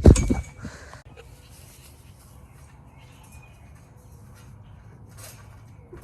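A brief loud rumbling thump at the start, then faint steady outdoor background noise with a few faint brief high sounds.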